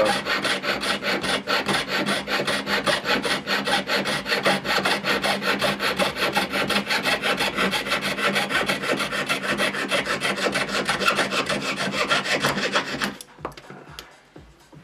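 Jeweller's piercing saw cutting a metal strip in rapid, even back-and-forth strokes, the blade freshly wetted so it runs smoothly. The sawing stops suddenly about thirteen seconds in.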